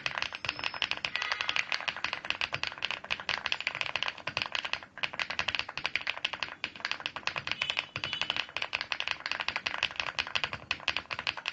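Fast, continuous typing on a mechanical keyboard fitted with custom "Coral Sea" switches, a quick run of key clicks with short breaks about five and six and a half seconds in. The switches bottom out with a crisp sound that is not sharp.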